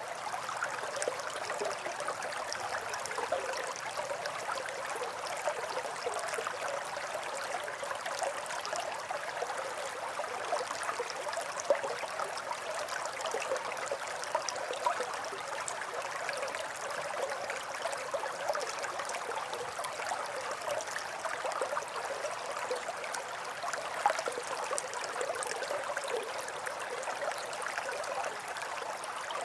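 Babbling brook: shallow water running steadily over stones, a continuous trickling flow with a couple of brief louder spikes.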